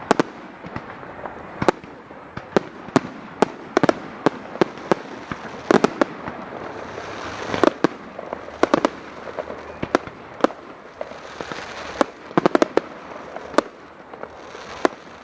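Fireworks display: a rapid, irregular run of sharp bangs, several coming in quick clusters, over a continuous crackle and fizzing hiss.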